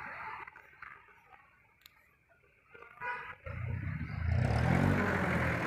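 Diesel engine of a jeepney passing close alongside. Its low engine note swells in from about three and a half seconds in and is the loudest sound, after a stretch where the road and wind noise had dropped almost to quiet.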